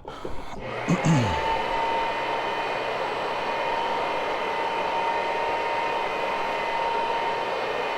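A rotary carpet-cleaning floor machine starts about a second in and runs steadily, a constant motor whine over a rushing hum.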